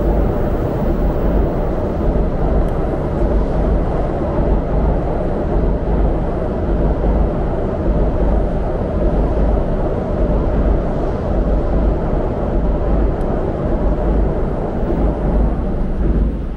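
Loud, fluttering low rumble of wind on a bicycle-mounted camera's microphone while riding, over steady city traffic noise.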